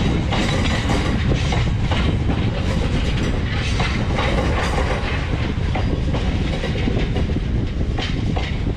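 Freight train of covered hopper wagons rolling past close by: a steady rumble of wheels on rail with regular clickety-clack as the bogies cross the rail joints.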